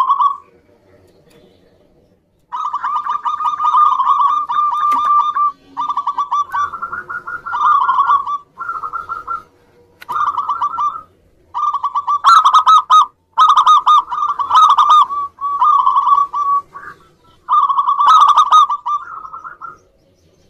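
Zebra dove (perkutut) calling. After a short lull at the start, it gives phrase after phrase of rapid, rolling cooing notes, each lasting about a second, with brief gaps between them.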